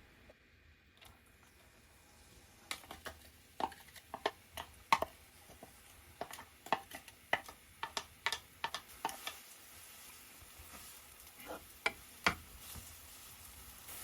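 Kitchen utensil knocking and clinking against cookware while food is stirred: a quiet start, then a quick irregular run of sharp taps and clacks that thins to a few scattered knocks near the end.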